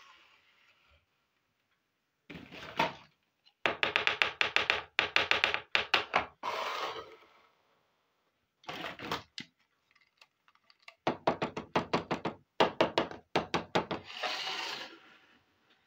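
Small plastic toy kitchen pieces being handled and set down on a table: several bursts of rapid clicking and tapping, with short scraping sounds of plastic sliding on the surface.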